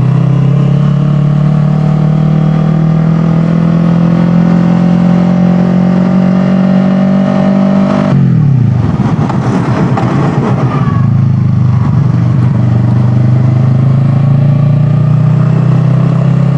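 Kawasaki ER-6n's parallel-twin engine pulling under load while ridden, its note climbing slowly for about eight seconds. Then the pitch drops sharply as the throttle shuts or the gear changes, a ragged rush of noise follows for a couple of seconds, and the engine settles to a steady, lower cruising note.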